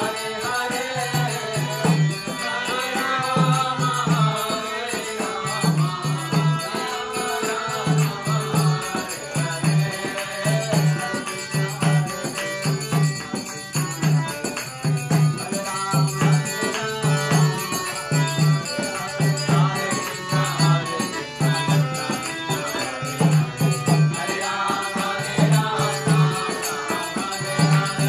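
Devotional bhajan: voices singing a chant over a steady low drum beat of paired strokes about once a second, with jingling hand percussion throughout. The singing is strongest at the start and again near the end.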